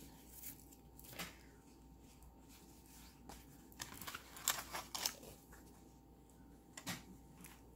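Scattered faint rustles, crinkles and small clicks of a fabric wall tapestry and its packaging being handled and opened up, busiest about four to five seconds in.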